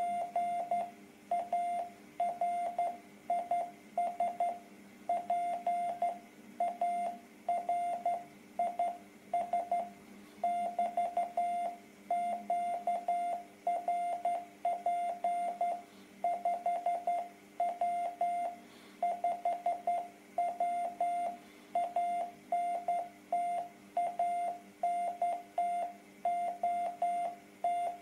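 Morse code from an amateur radio transceiver in CW mode: a single steady mid-pitched tone keyed on and off into dots and dashes, sending continuously.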